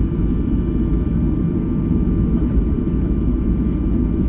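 Steady cabin noise inside a Boeing 737-800: a low rumble of the engines and air system, with a faint steady whine above it.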